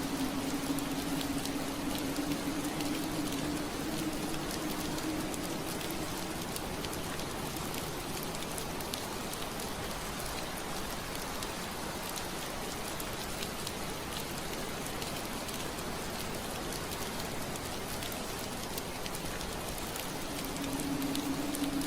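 Steady rain on window glass: an even hiss of rainfall with many small drop ticks. A low steady hum sits under it at the start, fades away within the first few seconds and returns near the end.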